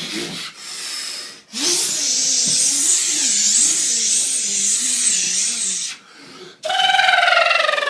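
A man imitating with his voice a big Cummins diesel tractor-pull tractor starting up and pulling. A long, loud breathy hiss runs over a wavering low hum, then after a short break comes a high whine that falls in pitch as it winds down.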